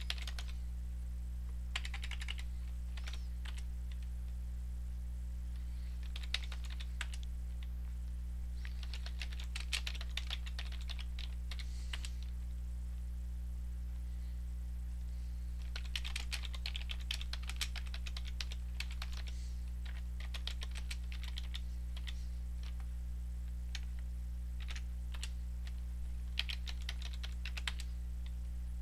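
Typing on a computer keyboard in short bursts of rapid key clicks with pauses between them, over a steady low hum.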